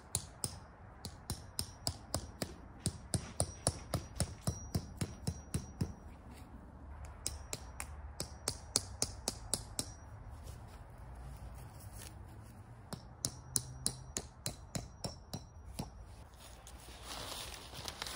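Bouts of quick metallic taps, about three or four a second, as a metal tent stake at the corner of a tipi tent is driven into the ground. Near the end comes a rustle of the tent's nylon fabric.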